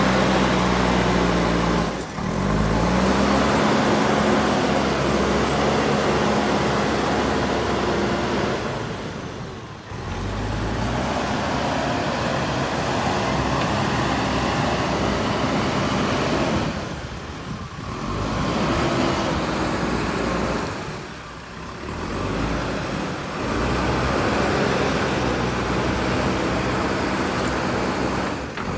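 JCB 3DX Super backhoe loader's four-cylinder diesel engine running under load, its pitch stepping up a few times as it works, over a steady rush of noise from the flowing water around it. The sound dips briefly a few times.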